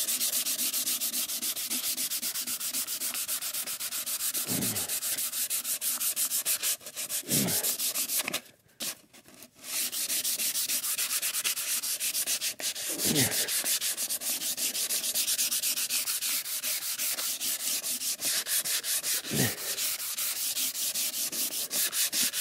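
Hand sanding: a sheet of 150-grit sandpaper held flat under the fingers is rubbed rapidly back and forth over the top of an old wooden drawer. This is the intermediate-grit pass. The strokes stop briefly about eight seconds in, then resume.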